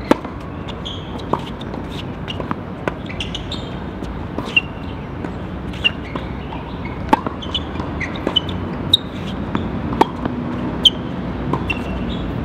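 Tennis rally: a ball struck by rackets and bouncing on a hard court, giving sharp pops roughly every second, with short high squeaks in between.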